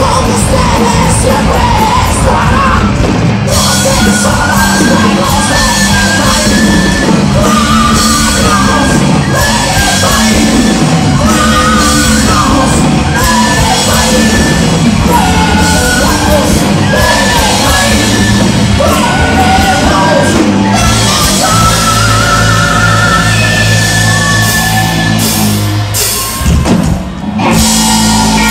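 Heavy metal band playing live: the lead vocalist singing and shouting over bass guitar and a drum kit. The music drops out briefly near the end, then the band comes back in.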